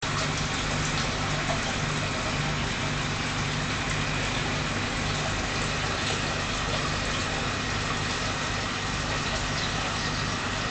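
Aquarium pump running: a steady hum that pulses unevenly, under a constant hiss of moving water.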